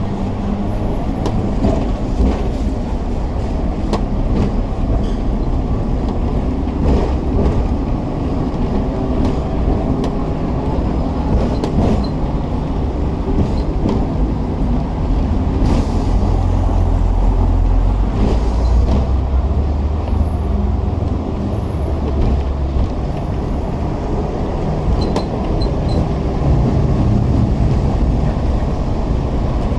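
Hong Kong double-decker electric tram running along its street track, heard from on board: a steady low rumble of the tram and its wheels on the rails, with light rattles and clicks. A brief hiss comes about halfway through, with the rumble growing louder just after it.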